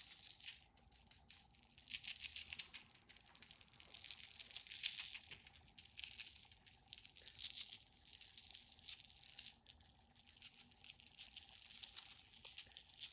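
Dry spice rub being shaken out of a shaker bottle onto raw chicken pieces: a granular hiss that comes and goes in irregular shakes, with a few small clicks.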